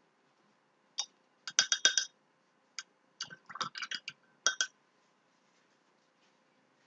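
Paintbrushes clinking in their container as a thin brush is picked out: a series of sharp, ringing clinks, one about a second in, a quick cluster around two seconds, and another cluster from about three to four and a half seconds.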